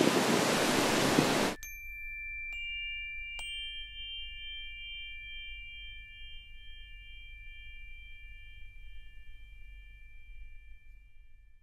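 Wind and surf rushing on the microphone, cut off abruptly about a second and a half in. Then three tuned metal energy chimes are struck one after another, each a higher note, and they ring on together, slowly fading.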